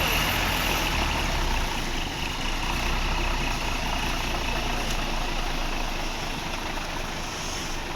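Heavy bus engine running steadily with a low rumble, easing off slightly in level over several seconds. No telolet horn is sounding.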